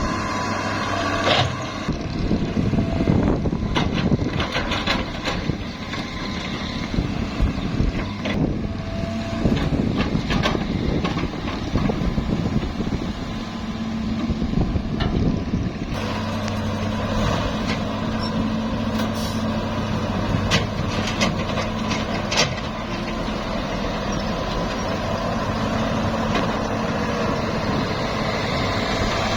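Heavy diesel machinery, the mini excavator and dump truck at work, engine running steadily. For roughly the first half there are irregular knocks and clatter; after a sudden change about halfway through, a steadier engine hum with fewer knocks.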